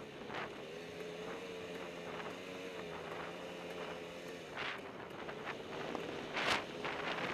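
Two-stroke enduro dirt bike engine running at a steady, light throttle as the bike rolls down a rocky, rutted trail, with sharp knocks from stones and ruts hitting the wheels and suspension, the loudest about six and a half seconds in. Wind rushes over the helmet-camera microphone.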